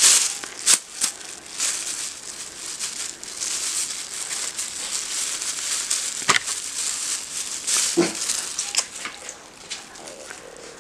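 Thin white plastic shopping bag crinkling and rustling as it is handled and folded, with a run of sharp crackles that are loudest in the first second.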